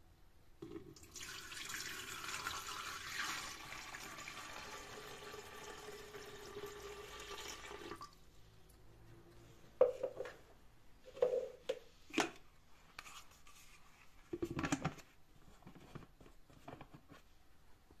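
Water pouring from a jug into the top-fill tank of a Levoit Dual 200S humidifier, a steady splashing hiss lasting about seven seconds, then several short knocks a few seconds later.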